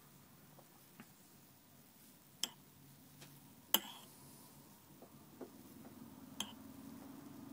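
Teaspoon clinking against a china coffee cup as frothed milk coffee is stirred: a handful of separate light clinks, the loudest about halfway through. A low steady hum comes in near the end.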